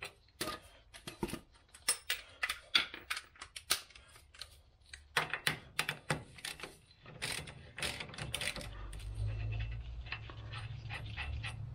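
Hand ratchet clicking in short back-and-forth strokes as a socket backs off a ball-joint stud nut on a steering knuckle. Past the middle the clicks thin out and a low steady hum takes over.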